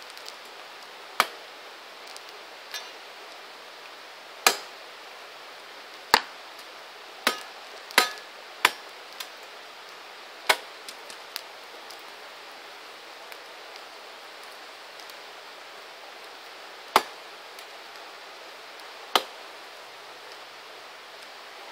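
Campfire burning wood, with a steady hiss and about a dozen sharp, irregularly spaced pops and cracks, clustered in the first half and two more late on.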